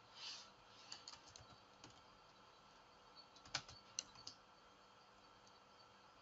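Faint computer keyboard keystrokes: a few scattered key presses about a second in, another cluster around three and a half to four seconds, then nothing.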